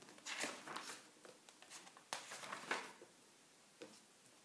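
Paper pages of a large bound book being turned by hand: two soft rustling swishes, the first about half a second in and the second about two seconds in.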